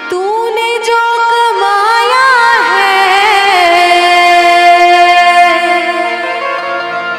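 Woman's voice singing a wordless, ornamented bhajan phrase over a harmonium, sliding and bending in pitch, then holding one long steady note from about halfway through.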